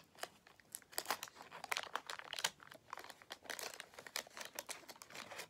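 A 1988 Fleer baseball card wax pack being torn open and crinkled by hand. A run of irregular papery crackles and rips.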